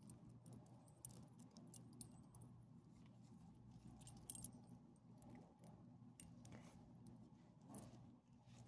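Metal collar tags and leash clip jangling in quick, irregular clinks as a dog squirms and rolls on the ground, over a faint steady low hum.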